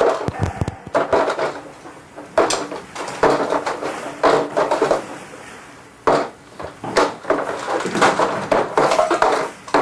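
Household recyclable waste (plastic and paper packaging, cans) being handled, crumpled and knocked: irregular crinkles, clatters and taps, thinning out about halfway and getting busier near the end.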